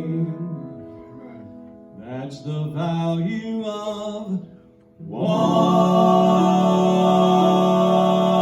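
Closing bars of a gospel song. A held note fades out, a short wavering phrase follows, and then a loud final chord is sustained steadily.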